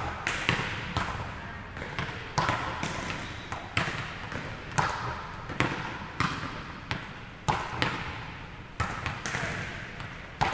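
A volleyball being hit back and forth: a sharp slap at each contact, roughly once a second, each one echoing in a large gym.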